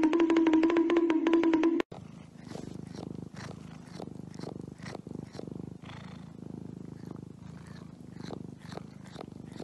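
Orange-and-white cat purring in its sleep, a steady low rumble, with soft smacking clicks two or three times a second as it makes chewing movements with its mouth, as if dreaming of eating. Before that, a loud, steady buzzing tone cuts off sharply about two seconds in.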